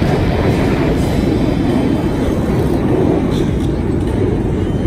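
Jet aircraft flying over, a loud steady roar.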